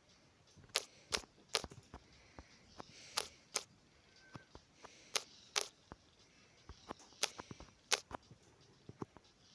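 Miniature fireworks display going off: a string of sharp cracks, about ten, irregularly spaced and often in pairs, with a faint hiss between some of them.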